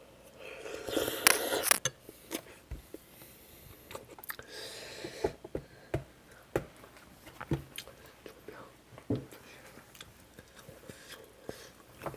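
Close-up eating sounds: a person eating kimchi stew, chewing with wet smacks and short clicks. There is a louder noisy burst about a second in and another softer noisy stretch around the middle.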